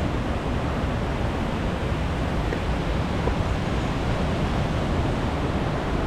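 River water rushing steadily: an even, unbroken noise of flowing water.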